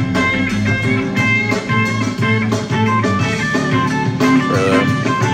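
Background music: a band track with electric guitar, playing steadily.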